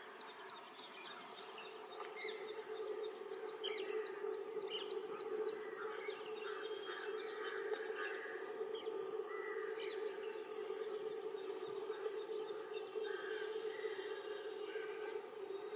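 Steady hum of a pair of WAG-5 electric locomotives hauling a freight train, heard from afar, growing a little louder about two seconds in. Birds chirp throughout.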